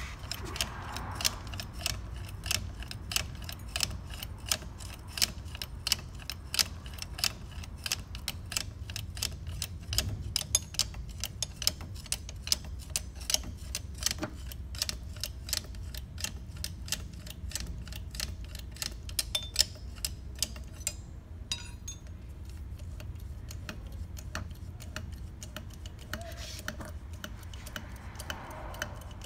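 Ratchet clicking steadily, a few clicks a second, as it turns a long socket extension in a truck wheel hub, with a brief pause a little after two-thirds of the way through.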